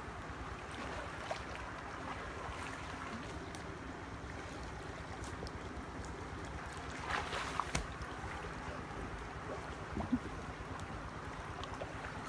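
Legs wading through knee-deep stream water, a steady sloshing, with a few sharper splashes past the middle.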